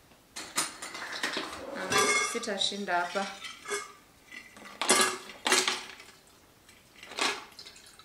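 Hard clinks and knocks from a vacuum flask and a tumbler being handled, with ice cubes clattering inside the flask as it is tipped to pour out its cold water. The clinks come thickest in the first half and end with a single clink near the end.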